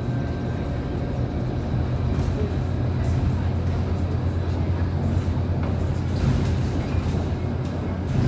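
Inside the passenger cabin of a Scania K230UB city bus under way: the diesel engine's low, steady drone mixed with road and tyre noise. The drone swells a little in the middle.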